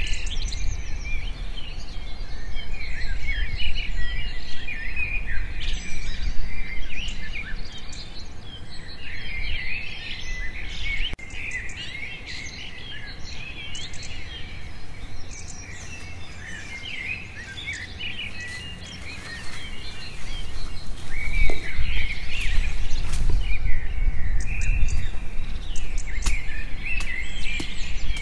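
Many forest birds chirping and calling in a steady chorus of short, high notes, over a low rumble. A few sharp clicks and knocks come in the second half, where the rumble grows louder.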